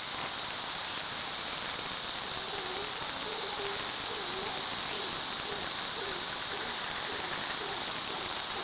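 Steady, high-pitched hiss of outdoor ambience with no breaks. A faint low call repeats about twice a second underneath from a few seconds in.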